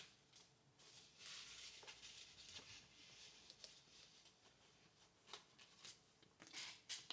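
Faint pen writing on planner paper: a stretch of continuous scratching, then scattered light ticks and taps of the pen and paper.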